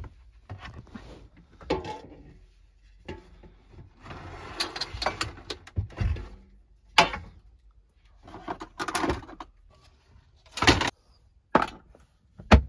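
Kitchen handling in a small van kitchen: a string of knocks, clatters and rustling as things are moved about on the counter, with a wooden overhead cupboard door knocking open near the end.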